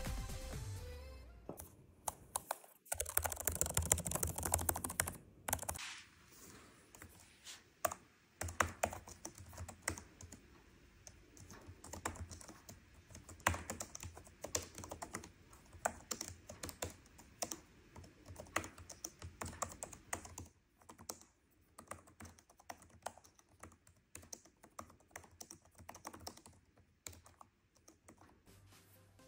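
Typing on the ESR Rebound 360 folio case's detachable keyboard: a long run of quick, light key clicks with short irregular pauses. Before the typing starts, a louder noisy rush lasts about two seconds, beginning about three seconds in.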